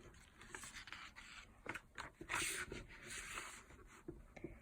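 Faint rustling and scraping of paper, with a few small clicks: a picture book's page being turned and handled. The clearest rustles come a little past halfway.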